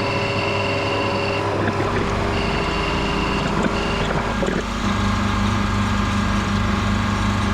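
Workshop machine tool's electric motor running steadily with a hum and a high whine that comes and goes; the running note changes about five seconds in.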